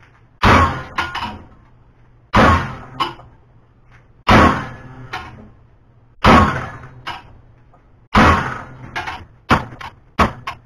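A 4-pound sledge hammer striking a steel throwing knife clamped in a bench vise: five heavy metal-on-metal blows about two seconds apart, each dying away quickly and followed by a lighter knock, then a quicker run of lighter strikes near the end. The blows bend the blade over as a test of the tool steel's toughness.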